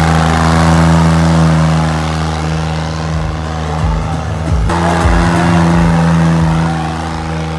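Diesel tractor engine running hard at high, steady revs under heavy load, with black smoke from the exhaust stack. Partway through, the engine sound shifts abruptly to a slightly different pitch.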